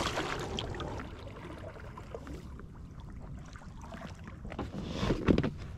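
Kayak paddle blade dipping and splashing in the water beside an inflatable kayak, with a light wind noise on the microphone and a louder thump about five seconds in.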